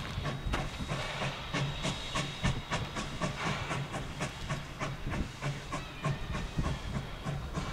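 Baldwin steam locomotive working past at close range, its exhaust beating out quick, even chuffs, about five a second. Steam from the open cylinder cocks hisses underneath.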